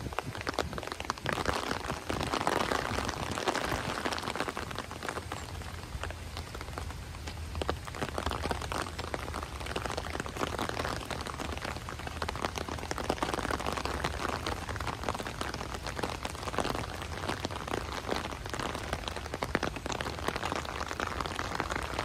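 Steady rain, drops pattering densely on an umbrella overhead, swelling and easing every few seconds.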